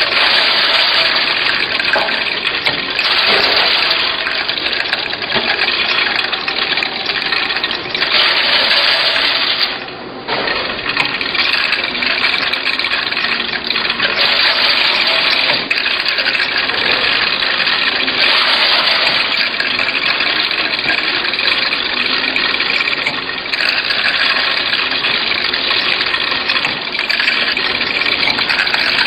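Table-top tablet and capsule counting machine running: a steady, dense rushing clatter of pills tumbling around its rotating feed bowl. It dips briefly about ten seconds in.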